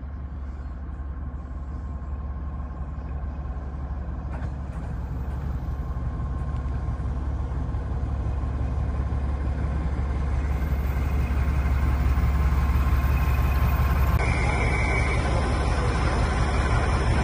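Heritage diesel train's engine running as a steady low rumble. It grows louder over the first dozen seconds, then holds steady.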